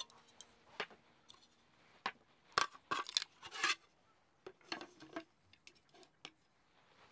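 Cups, plates and wooden utensils being set down on a slatted wooden camping table: a series of light clacks and clatters, busiest around the middle.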